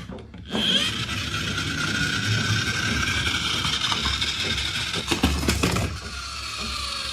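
Motorized toy train running along its track, a steady whirring with a few clicks about five seconds in.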